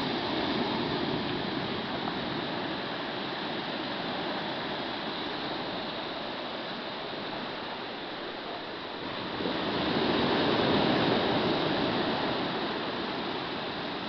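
Sea waves washing onto a beach: a steady rush of surf, with one wave swelling louder about nine and a half seconds in and then fading away.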